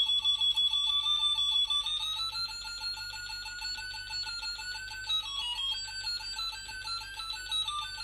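Rapidly pulsing electronic beep from a small loudspeaker driven by an Arduino, its pitch set by a photocell light sensor. The pitch glides slowly upward as the light on the sensor changes, then jumps up and down in steps in the second half.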